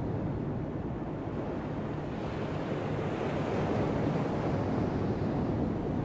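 Atlantic ocean surf: a continuous wash of breaking waves that swells about two seconds in and eases near the end.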